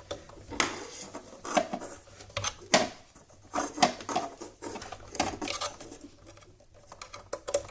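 Irregular clicks and knocks of a USB hub and its cable being handled and plugged into a computer's USB port.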